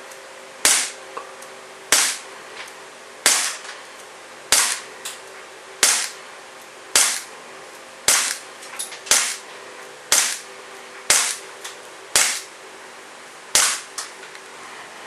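Umarex Walther CP99 Compact CO2 blowback BB pistol firing about twelve shots, roughly one a second, each a sharp crack with the slide cycling back. Several shots are followed by a fainter tick.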